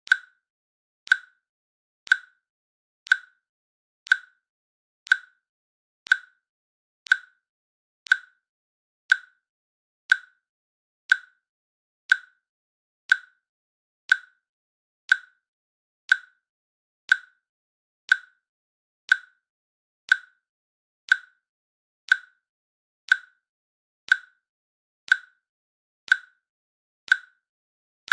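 A synthetic timer click sounding once a second, short and sharp with silence between clicks: a countdown timer ticking off the seconds.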